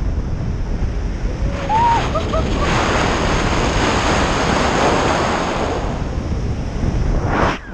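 Wind buffeting the camera's microphone during a tandem parachute descent under canopy: a steady rushing noise that gets louder about three seconds in and briefly drops out near the end.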